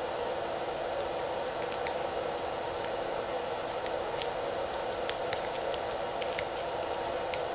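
Scattered small clicks and taps of fingers handling a plastic RC radio receiver and pressing a foam double-sided adhesive pad onto it, starting about two seconds in, over a steady background hum.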